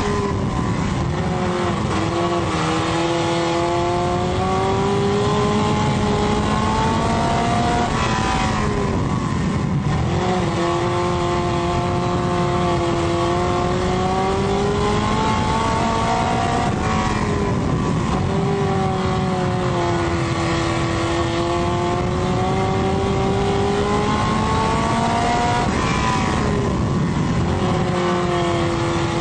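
Dirt-track race car engine at racing speed, heard from inside the car: the revs drop sharply and then climb slowly back about every eight seconds, over steady road and dirt noise.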